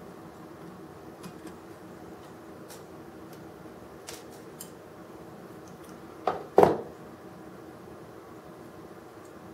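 Small clicks and taps of tools and parts being handled while a diecast model crane is taken apart, with two sharp knocks close together about six and a half seconds in.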